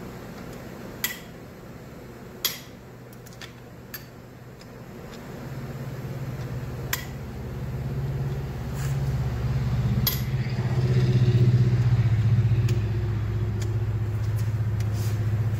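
Sharp metallic cracks and clinks as cylinder head bolts are broken loose with a long breaker bar, loudest twice in the first few seconds. From about five seconds in, the low rumble of a motor vehicle's engine builds and stays loud.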